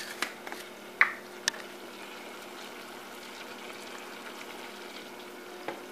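Melted butter bubbling gently in a saucepan on the stove, a steady soft sizzle. A few light clicks in the first second and a half.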